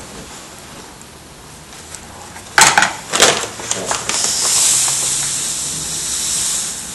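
Two sharp clatters about half a second apart, then a steady high hiss for nearly three seconds as marble dust pours from a plastic bag into a tray of gesso.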